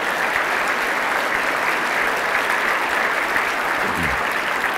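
A large audience applauding: dense, steady clapping throughout.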